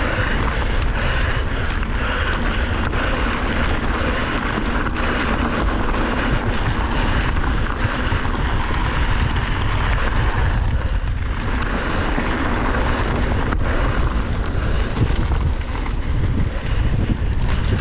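Steady wind noise buffeting the microphone, a continuous loud rush from a mountain bike being ridden fast downhill.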